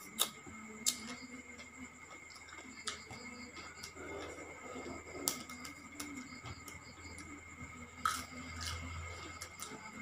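A person eating by hand, chewing noodles and salad, with a handful of sharp wet mouth clicks and smacks over a steady chirring of crickets.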